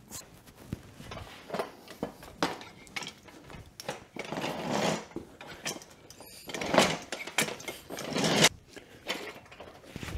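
Hand tools working a dirt bike tire off its rim: irregular metal clicks and knocks, with two longer stretches of rough scraping and rubbing of rubber against the rim, the second ending about eight seconds in.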